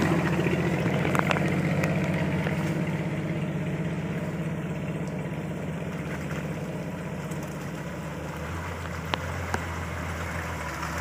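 Engine of a log-laden Toyota Land Cruiser FJ40 running steadily under load at low speed in mud. The hum fades a little, then grows louder from about two-thirds of the way in as the vehicle comes closer. There are a few short sharp clicks, one early and two near the end.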